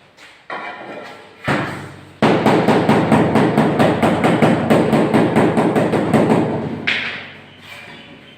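Two single knocks, then a quick run of hammer strikes, several a second, that lasts about four and a half seconds and stops suddenly near the end.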